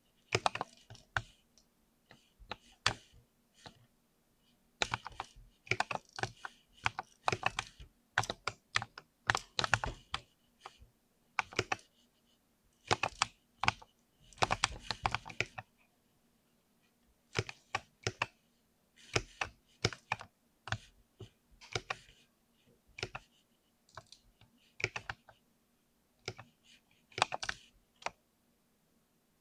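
Typing on a mechanical keyboard with Cherry MX Silver linear, clickless switches. The keystrokes come in quick bursts of rapid presses, separated by pauses of a second or two.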